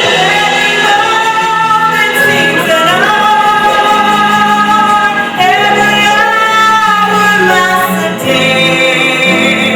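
Musical-theatre song: a female voice holding long notes over accompaniment.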